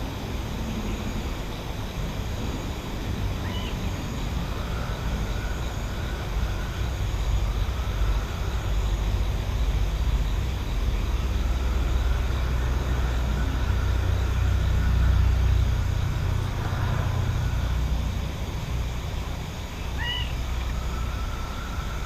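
Countryside night ambience: a low rumble that swells in the middle and then eases off, with two short high chirps, one a few seconds in and one near the end.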